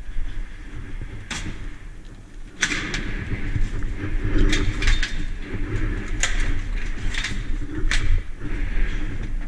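Airsoft gunfire in a sewer tunnel: about ten sharp cracks at uneven intervals, each trailing a short echo, over a steady low rumble.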